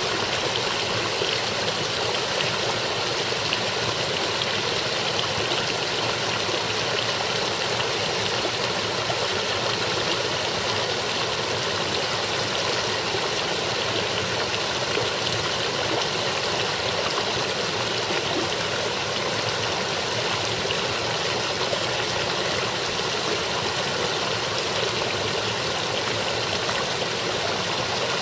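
Partly frozen brook babbling steadily over rocks between shelves of ice and snow.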